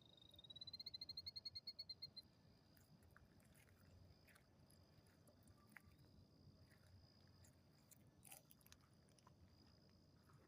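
Quiet outdoor ambience: a small animal's high, fast chirping trill for about the first two seconds, then a faint steady high whine with scattered faint clicks.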